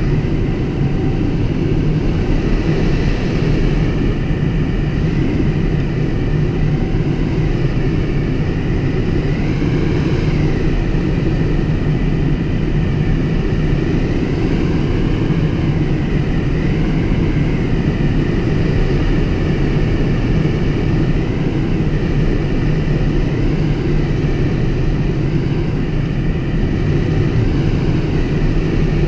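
Steady rush of air around the cockpit of an unpowered Schleicher Ka 8 glider in flight. A faint high tone wavers up and down in pitch every few seconds.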